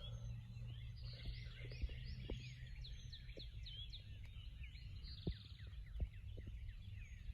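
Many small songbirds chirping and whistling at once in a morning chorus, over a steady low hum, with a few soft knocks.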